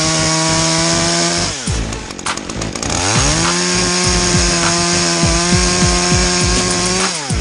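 Chainsaw at full throttle, easing off about a second and a half in, then revved back up and held before being let off near the end. An electronic dance beat runs underneath.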